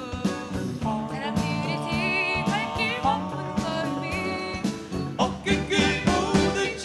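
Korean pop song performed live: a woman's and a man's voices singing over acoustic guitar and a backing band with drums.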